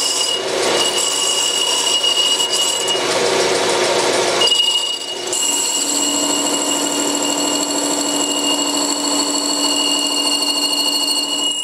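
Metal lathe turning an aluminium tube while its cutting tool bevels the inside edge of the tube's mouth into a rounded, velocity-stack-style lip, with steady high whining tones over the cutting noise. The cut eases briefly about four and a half seconds in, then resumes with a steady lower hum added.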